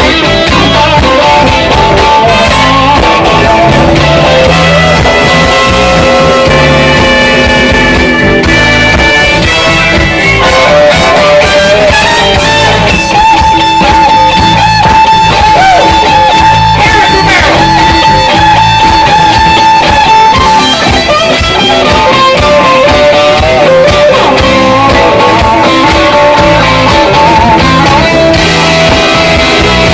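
Blues band playing live in an instrumental stretch: electric guitar lead with long held, wavering notes over a steady bass and drum groove.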